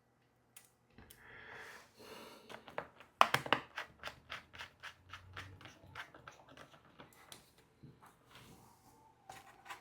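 A run of light clicks and taps from a precision screwdriver and small screws as a laptop's bottom cover is screwed back on, with a short scraping rustle early and the sharpest clicks clustered about three seconds in.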